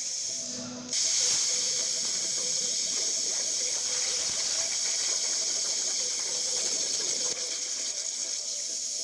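Plasma arc of a Hypertherm Powermax1250 G3 torch on a CNC table cutting steel plate: a sudden loud, steady hiss starts about a second in. It eases a little about seven seconds in, and a softer hiss carries on.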